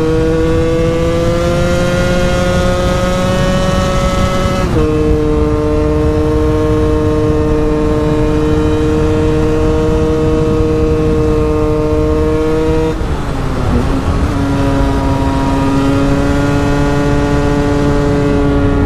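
KTM EXC 125's two-stroke single-cylinder engine running hard at high revs, its pitch climbing slowly and then stepping down about five seconds in. Around thirteen seconds in it briefly eases off and resumes at a slightly lower, steady pitch, with wind noise throughout.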